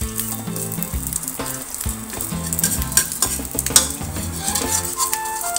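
Omelette with nham sizzling in hot oil in a wok. A metal spatula scrapes and taps against the wok several times as it presses and shifts the omelette.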